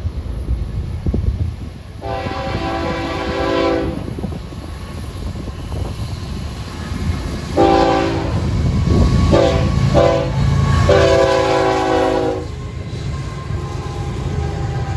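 Freight locomotive air horn sounding a multi-note chord in grade-crossing blasts: one long blast about two seconds in, a group of shorter blasts around eight to ten seconds, then a final long blast. The lead unit is Florida East Coast GE ES44C4 No. 809. Under the horn the diesel locomotives rumble, louder as they come alongside near the end.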